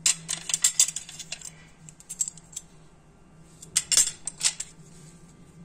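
Metal cutlery and a ceramic plate clinking together in quick runs of light clicks, one burst at the start and another about four seconds in.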